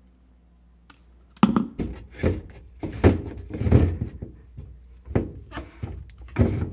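After a quiet first second and a half, a dozen or so irregular plastic knocks and thunks: the white plastic bowl of a whole-house sediment filter housing being handled and screwed back onto its head by hand, with the new cartridge inside.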